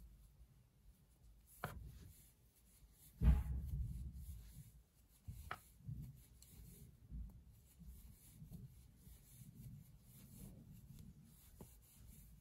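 Faint rustle of yarn and hands working a Tunisian crochet hook through stitches, with a few soft knocks, the loudest about three seconds in.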